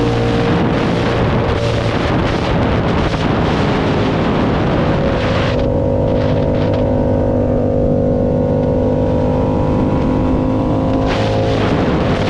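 Motorcycle engine running on the road: hard and rough under throttle at first, then about halfway through it settles into a steady, smoother tone that slowly drops in pitch as the bike rolls off, before opening up again near the end.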